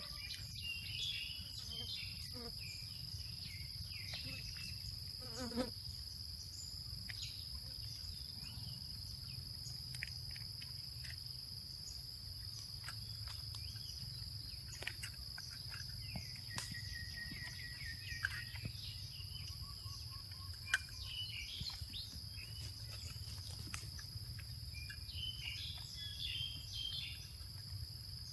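Outdoor ambience: a steady, high-pitched insect drone, with scattered short bird chirps and a low rumble underneath.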